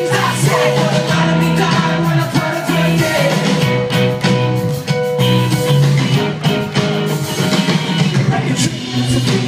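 Live rock band playing with guitars and a sung vocal line, heard from the crowd of a club show.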